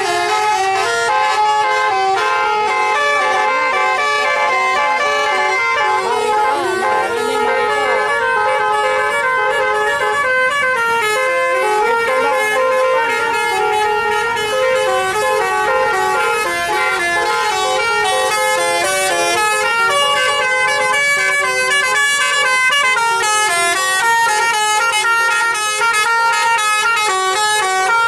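Telolet bus horns, a multi-trumpet horn on Indonesian tour buses, playing a fast melody of stepped notes without a break.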